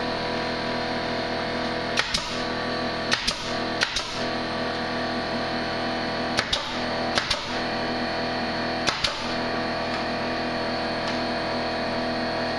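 Pneumatic nail gun firing nails into wooden ceiling framing: about seven sharp shots, singly and in quick pairs, over a steady musical drone.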